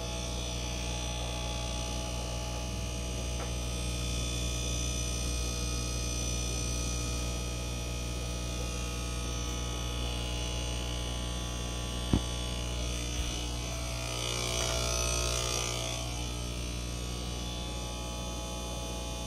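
Steady electrical hum and buzz of the fish room's aquarium pumps and filters running, with one sharp click about twelve seconds in and a brief swell of hiss a little later.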